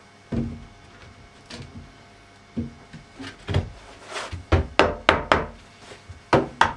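OSB panels set into the rebate of an OSB cabinet top and knocked down with a hammer. A few separate thuds come first, then a quick series of about ten hammer knocks from about three seconds in.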